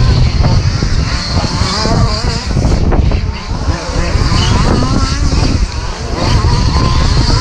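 Radio-controlled short course trucks racing, their motors rising and falling in pitch as they speed up and slow down, over a heavy low rumble of wind on the microphone.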